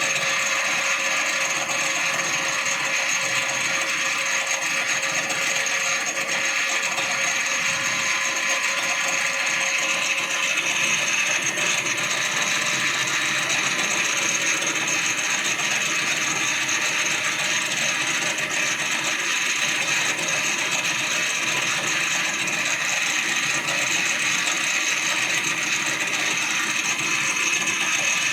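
Engine lathe running steadily through a plain-turning pass: an even mechanical whir from the headstock gearing, with several steady whining tones and no change in level.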